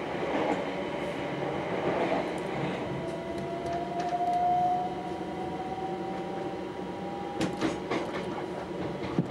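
Onboard a Southern Class 377 Electrostar electric multiple unit running along the line: a steady rumble of wheels on rail, louder at first while another train passes close alongside. A thin whine rises slightly in pitch in the middle, and a few sharp clicks of the wheels over rail joints come near the end.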